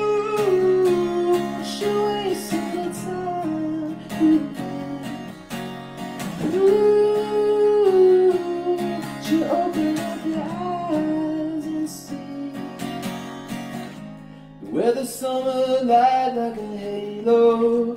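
Acoustic guitar strummed steadily while a man sings a melody with long held notes over it.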